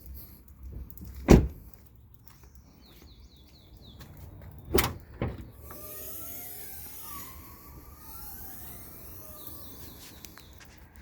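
A hood being handled and latched: a sharp knock about a second in, then two more knocks close together near the middle, followed by faint rising and falling whines.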